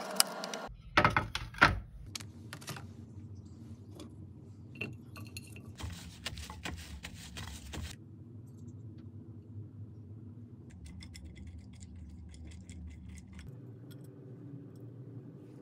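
Kitchen knife cutting through asparagus stalks onto a wooden cutting board: a few sharp knocks about a second in. Then quieter clinks and rustling as the spears are handled on a plate.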